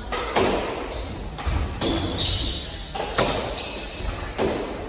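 A squash doubles rally: the ball smacked by racquets and hitting the walls about every half second, each strike echoing around the court, with short high squeaks of shoes on the hardwood floor between.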